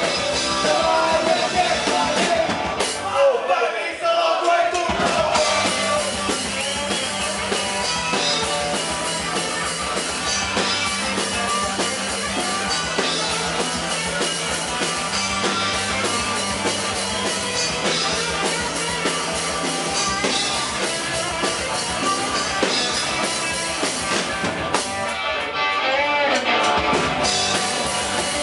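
Punk rock band playing live, with electric bass, guitar and drum kit, loud and dense. About three seconds in, and again a few seconds before the end, the low end drops away for a couple of seconds before the full band comes back in.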